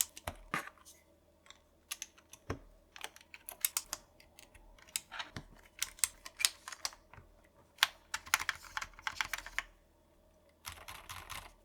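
Typing on a mechanical keyboard fitted with TTC silent switches: soft, muted key presses in quick irregular runs, pausing briefly near the end.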